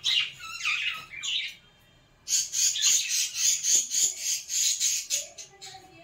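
Caged budgerigars chattering with rapid high chirps and squawks in two bursts, with a short pause after about a second and a half.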